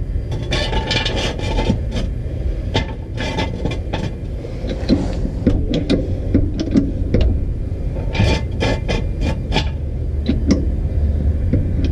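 Metal jack stand being scraped and clicked into place under a car. Clusters of short scrapes and clicks come near the start and again about eight seconds in.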